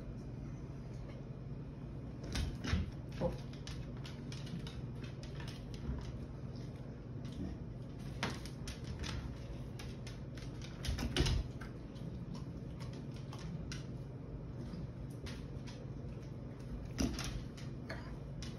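Irregular light clicks and taps with a handful of louder knocks scattered among them, over a steady low hum.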